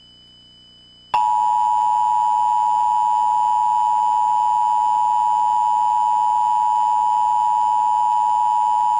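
Emergency Alert System attention signal: a loud, steady two-tone beep of two close pitches sounding together, starting abruptly about a second in, holding for about eight seconds and then cutting off. Before it, a faint high steady tone.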